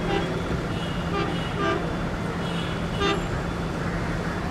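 Diesel locomotive horn giving several short toots over a steady low diesel engine drone.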